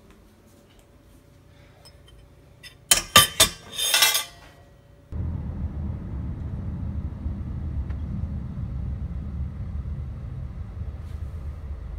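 Metal chopsticks clinking against a ceramic bowl: a few sharp clinks and a short clatter about three to four seconds in. From about five seconds, the steady low rumble of a moving car heard from inside the cabin.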